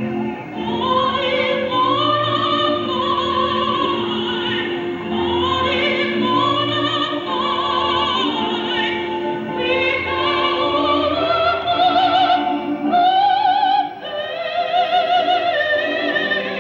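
A solo voice singing long held, wordless-sounding notes with a wide vibrato over a sustained accompanying note, in a gospel or spiritual style.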